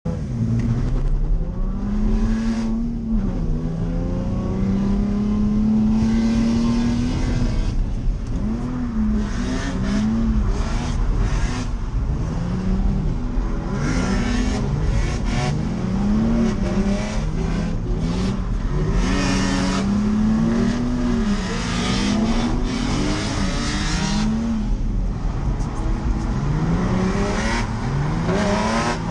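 Nissan 350Z's 3.5-litre V6 engine revving hard while drifting, its pitch rising and dropping over and over every second or so, with bursts of hiss between.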